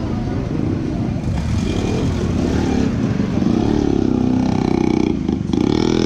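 Street traffic: engines of passing road vehicles, among them a small truck and motorcycles, running as a steady rumble. One engine passes close and grows loudest in the second half.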